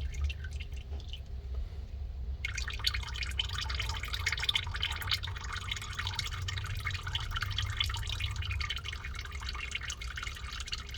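Warm engine oil dripping and trickling from a partly loosened oil filter on a Ford Explorer's 4.0 V6, turning into a dense, steady patter of drops about two and a half seconds in. A low rumble runs underneath.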